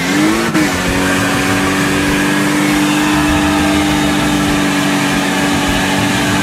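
Car engine revving up briefly, then held at a steady high pitch under heavy wind and road noise.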